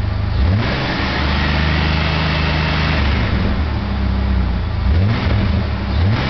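Jeep engine with a newly fitted aftermarket air intake kit being revved. The revs rise sharply about half a second in and hold for a couple of seconds before dropping back, then there are two more quick throttle blips near the end, with the engine torquing over on its mounts.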